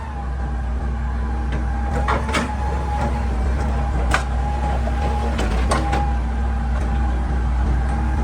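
Hitachi EX200 excavator running steadily, its diesel engine droning under a steady hydraulic whine, with about four sharp knocks of metal on rock scattered through it.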